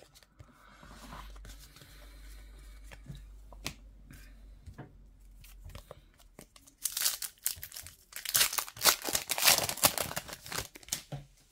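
Trading cards being shuffled by hand with soft rustles and light clicks. Then, from about seven seconds in, a foil trading-card pack wrapper crinkles and tears loudly as it is pulled open and handled.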